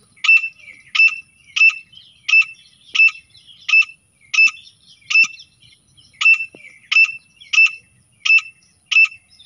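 Grey francolin calling: a long series of short, sharp, high notes, about one and a half a second, evenly spaced with one brief skip midway.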